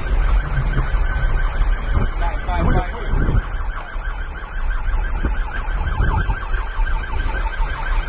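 Police siren sounding in a fast, repeating yelp, heard from inside a moving car over the steady rumble of engine and road.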